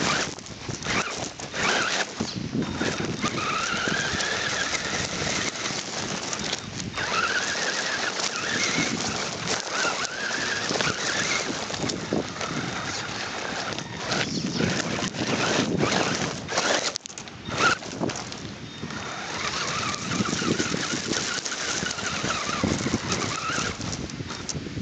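Radio-controlled rock crawler driving over gravel: its motor and gears whine, rising and falling in pitch with the throttle several times, over stones crunching and knocking under the tyres. There is a brief dip in the noise about seventeen seconds in.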